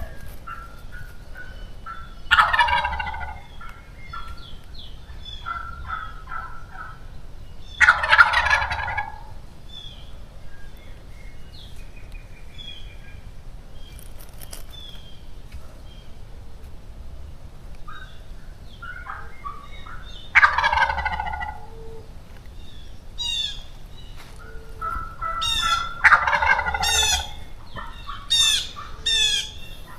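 Wild turkeys gobbling close by: four loud rattling gobbles spaced several seconds apart, with quieter short calls between them and high bird chirps near the end.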